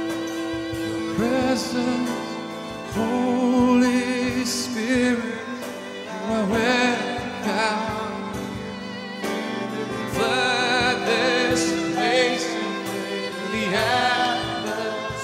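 Worship music: a voice singing long, wavering held notes over steady held instrumental chords.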